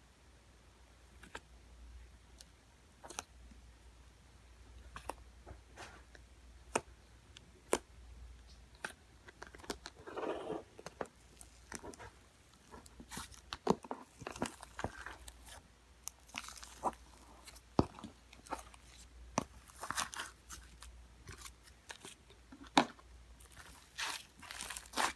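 Fingers pressing, poking and pulling fluffy clay slime, giving irregular crackling clicks and short squishy crunches that grow busier after about ten seconds.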